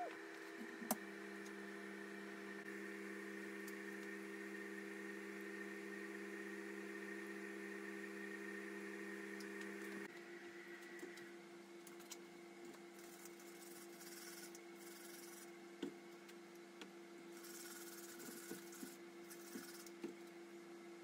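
Steady hum of several pitches from a home zinc-plating setup. About ten seconds in it switches abruptly to a slightly different hum, joined by light clicks and taps as parts are handled around the plastic plating tanks.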